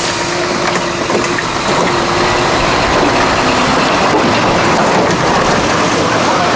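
A large vehicle's engine running steadily close by, loud and even, with a few scattered knocks on the metal loading ramp.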